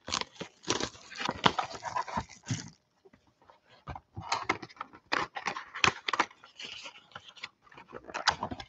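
Plastic shrink wrap crinkling as it is stripped off a cardboard trading-card box, dense for the first two and a half seconds or so. Then come scattered rustles and taps as the box is handled and opened.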